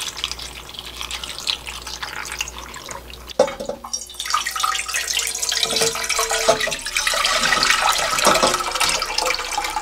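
Soy-sauce pickling brine being poured: first over radish pieces in a glass container, then, after a cut about three and a half seconds in, in a thick stream into a stainless steel pot, splashing and frothing. This is the brine drained off the radish pickles to be boiled again. The pouring grows louder near the end.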